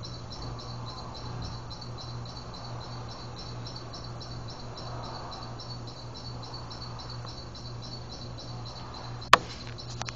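Insects chirping steadily in an even rhythm of a few high pulses a second, over a low steady hum. A sharp click about nine seconds in is the loudest sound, followed by a couple of fainter clicks.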